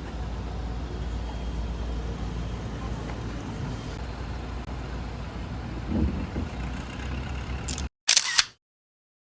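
Steady low background rumble that cuts off suddenly near the end, followed by a single camera-shutter click, a quick double snap like an SLR shutter.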